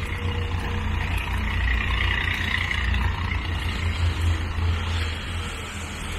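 A heavy lorry's engine and tyres rumble along the road. The noise swells through the middle and eases near the end as the traffic moves off.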